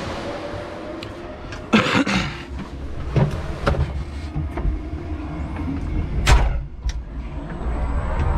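Knocks and clunks from the cab of a Linde electric forklift as the operator climbs in and shuts the cab door, with a loud clunk about two seconds in and another a little after six seconds, over a low hum from the truck.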